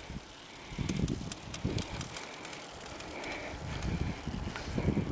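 Road bicycles riding uphill on pavement, with wind buffeting the microphone in an irregular low rumble and a few sharp clicks from the bikes.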